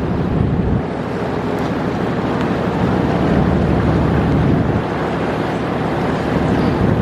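Small excursion boat under way: steady engine and water noise, with wind on the microphone.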